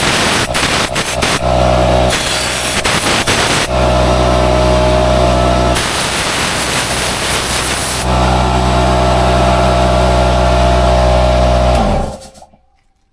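A motor-driven cleaning tool running with a steady hum, with loud hissing rushes that come and go, used to clear caked dirt from an air-cooled two-stroke engine's cooling fins. The motor winds down and stops near the end.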